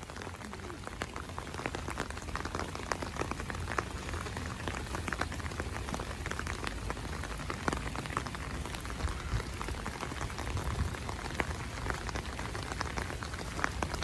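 Rain falling steadily, with dense, irregular drops ticking close by over a steady low rumble.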